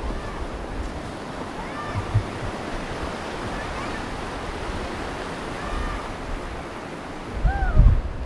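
Steady rush of white-water rapids on the Nepisiguit River at Pabineau Falls, with wind buffeting the microphone, strongest near the end.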